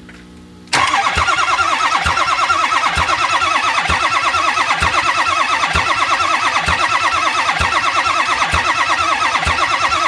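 Ford 6.0-liter Power Stroke V8 diesel cranking on its starter without firing, starting a little under a second in: a steady starter whir with an even, rhythmic compression pulse. It is cranked with the oil filter out to check oil flow, and no oil comes up: the engine has no base oil pressure.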